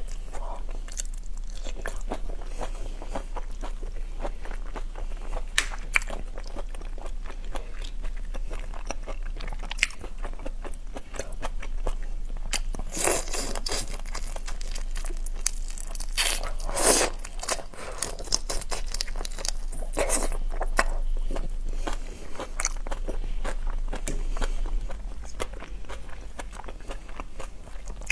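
Biting and chewing of whole raw shrimp, the shells crunching and crackling in many small bites. A few louder crunches come around the middle.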